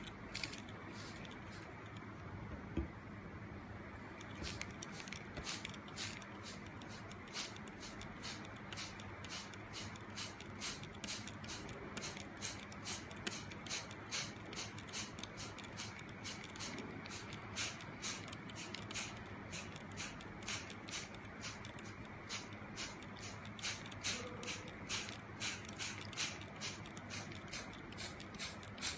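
Hand trigger spray bottle squirting water onto a shot timer in short hissing squirts: a few at first, then steadily about two a second from about four seconds in.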